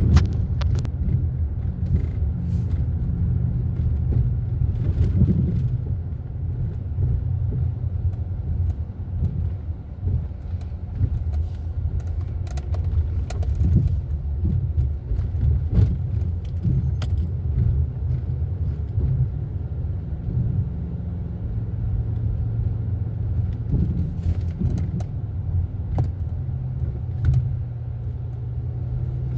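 A car driving, with a steady low engine and road rumble and scattered small clicks and rattles.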